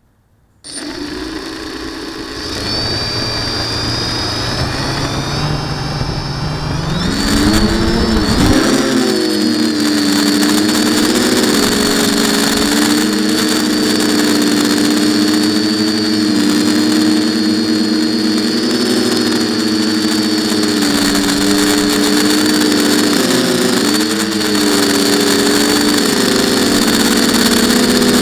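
Quadcopter's electric motors and propellers, heard from a camera on the frame. They start up suddenly about half a second in and run at low speed. They throttle up about seven seconds in, and in flight the propeller hum and a high motor whine rise and waver with the throttle.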